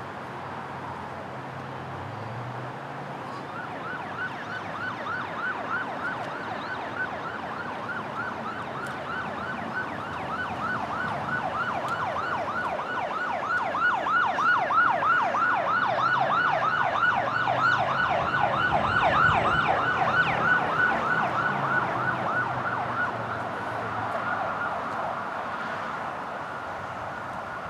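Electronic emergency-vehicle siren in a fast yelp, about five sweeps a second, starting a few seconds in, growing louder and then fading near the end, over a low traffic rumble.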